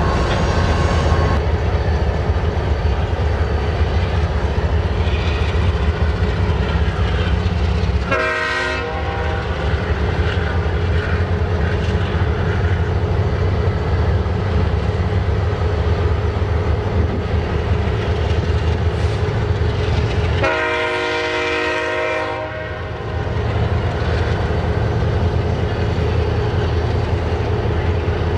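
Heavy freight train's BNSF diesel locomotives running with a loud, steady low rumble. The locomotive horn sounds twice: a short blast about eight seconds in and a longer one of about two seconds past the twenty-second mark.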